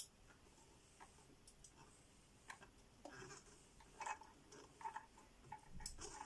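Faint, scattered clicks from a household sewing machine's needle mechanism as the handwheel is turned slowly by hand, bringing the needle down to pick up and draw up the bobbin thread.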